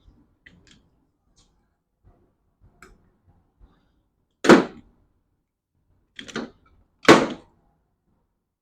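Hand tool snipping and stripping electrical wire: three short, sharp snaps, about halfway through, then twice more near the end, with faint small handling ticks between.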